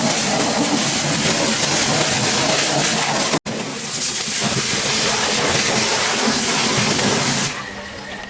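Pressure washer spraying, a loud steady hiss of high-pressure water. It breaks off for an instant about three and a half seconds in and stops shortly before the end.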